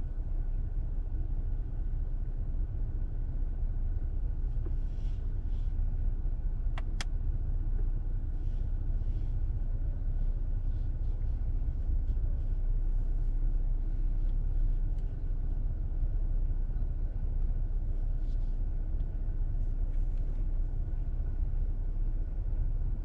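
Steady low road-and-tyre rumble inside a moving car's cabin, with a faint steady whine over it. Two sharp clicks come close together about seven seconds in.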